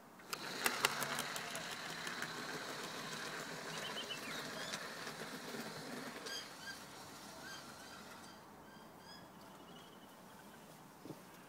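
HO-scale model train running past on garden track: it comes in with a rapid run of wheel clicks, then a steady high motor whine with wheel clatter that fades away over several seconds.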